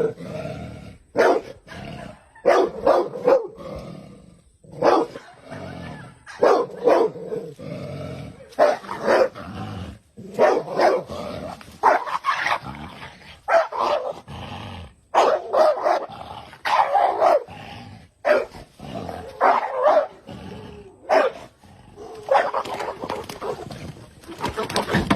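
Dogs barking again and again, in short calls that come at uneven intervals.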